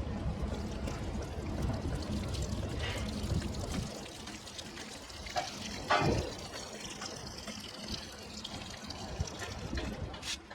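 Liquid pouring and trickling over a low rumble that falls away about four seconds in, with a single knock about six seconds in.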